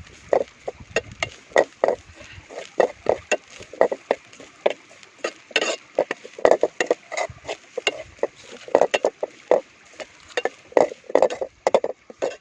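Ladle stirring and scraping grated coconut as it dry-roasts in a pan: irregular short scrapes, several a second.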